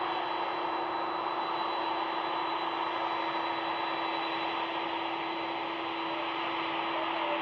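Twin turbofan jet engines of a Boeing 767-400ER at taxi power: a constant rushing hum with a steady high whine and a lower steady tone underneath.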